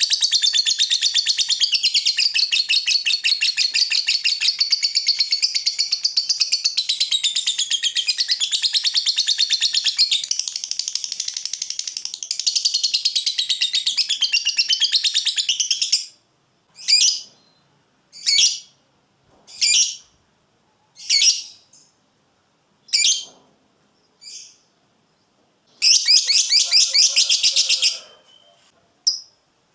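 Fighter lovebird's 'ngekek' call: a long, rapid, rattling chatter lasting about sixteen seconds. Six short separate chirps follow, then a second chatter of about two seconds, and a couple of short chirps near the end.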